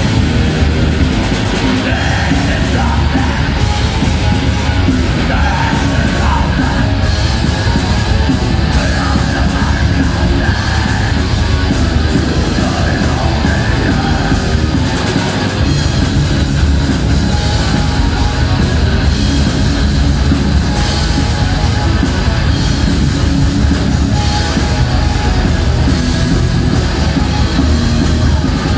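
Live metal band playing loud and continuous: distorted electric guitars, bass and drums, with a vocalist singing and yelling over them.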